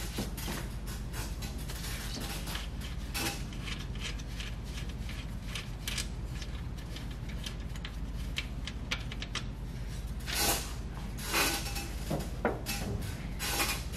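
Rapid, irregular small metallic clicks from hand work on the brake booster's firewall mounting nuts, with a few louder knocks and clunks near the end as the booster is worked loose.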